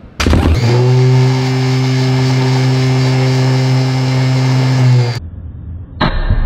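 Permanent-magnet DC motor powered from an arc welder's DC output, starting up and then running with a steady electric hum that cuts off suddenly. About a second before the end, a wire touched to the welder's output terminal sparks and crackles.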